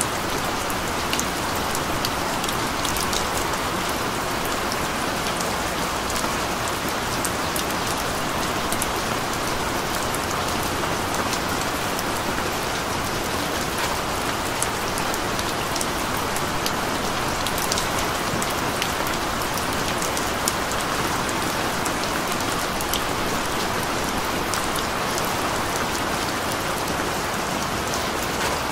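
Steady rain falling: an even hiss sprinkled with many small, sharp drop ticks.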